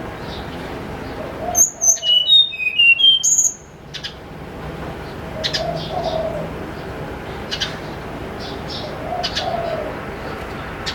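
Tledekan gunung songbird singing a loud, quick phrase of clear whistled notes that step up and down for about two seconds, followed by scattered short chirps. A dove coos softly in the background a few times.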